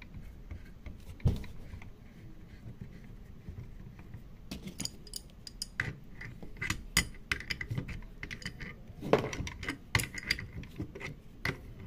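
Metal tool and valve parts clinking and clicking irregularly as the packing nut is screwed back onto a valve stem and tightened over the PTFE-tape-wrapped seal to stop the stem leak. One knock about a second in, then a run of sharp clinks from about halfway on.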